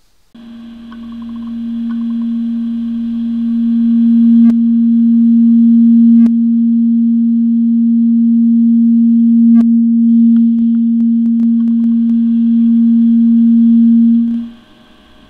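Microphone feedback through a Behringer PMP4000 powered mixer and its speakers: a single steady low-pitched tone that swells over the first few seconds, holds loud, then cuts off near the end as the 160 Hz slider of the mixer's feedback-detecting graphic EQ is pulled down.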